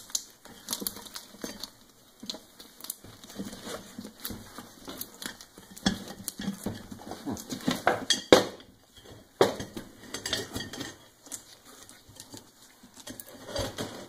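Handling noise of a riding mower wheel, a rubber tyre on a steel rim, being worked by hand on a wooden workbench: irregular knocks, clatters and rubbing as the wheel is turned and flipped over, with two louder knocks a little past the middle.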